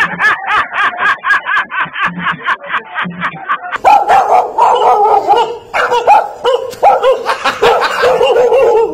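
Dog barking: quick repeated yaps, about four a second, then a run of lower, rougher barks from about four seconds in.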